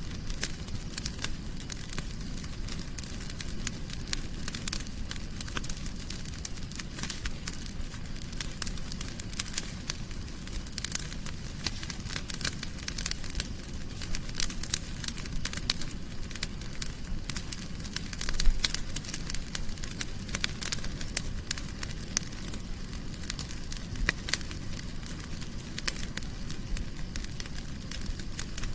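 Wood fire burning in a fireplace: a steady low rumble with dense, irregular crackles and snaps, and one louder pop about 18 seconds in.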